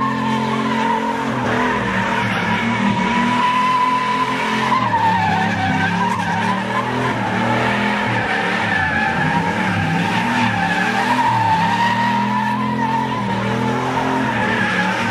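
Full-size GM C/K pickup doing donuts: its rear tyres squeal in a steady, slightly wavering screech while the engine revs rise and fall underneath.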